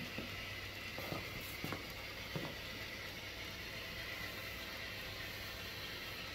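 Model freight train's cars rolling along the track: a steady low running noise, with a few sharp clicks in the first two or three seconds.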